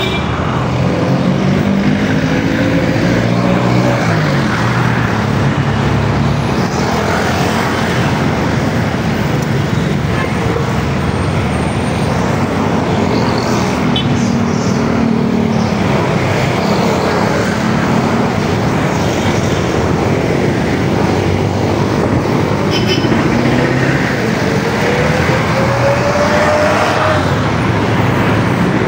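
Steady road traffic running past, cars and heavier vehicles together, with engines rising in pitch as vehicles pull away, once early on the way and again near the end.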